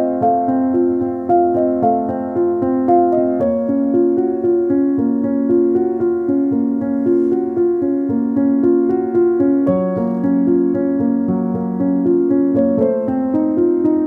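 Background piano music: a gentle melody of sustained notes with changing chords.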